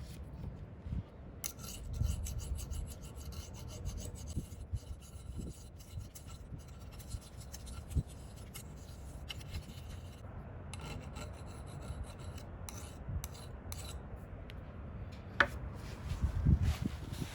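A hand tool rasping and scrubbing against a steel axe head in quick repeated strokes as its paint is stripped off, with a sharp knock near the end.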